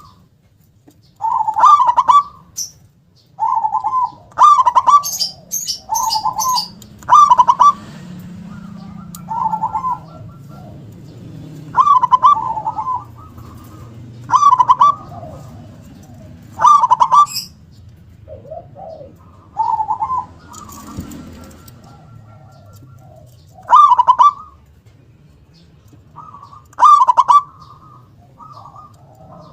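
Zebra dove (perkutut) cooing: about a dozen loud, rolling coo phrases, each about a second long, repeated every two to three seconds, in a big voice with a sharp, punchy 'kung'.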